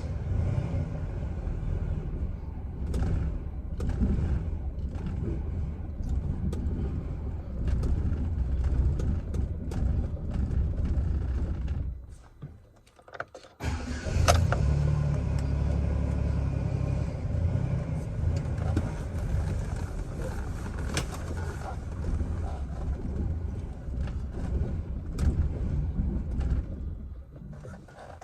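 Chevrolet Silverado pickup's engine turning with a low, uneven rumble. It cuts out for about a second and a half about twelve seconds in, starts again, and dies away near the end.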